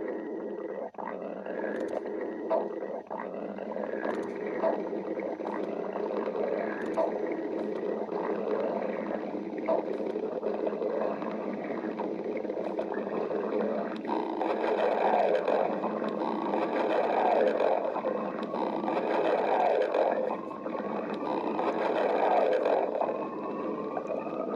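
Stomach growling: continuous gurgling and rumbling with scattered small pops and clicks. It grows louder about halfway through, swelling every couple of seconds, with a thin rising whine near the end.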